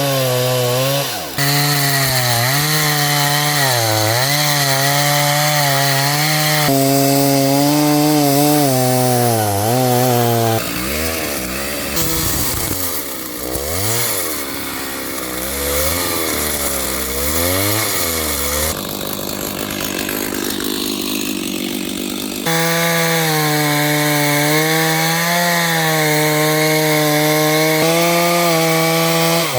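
Chainsaw running at high revs and cutting into wood, its engine note sagging and recovering as the chain bites. Through the middle it runs at a lower, wavering speed, then comes back up to full revs.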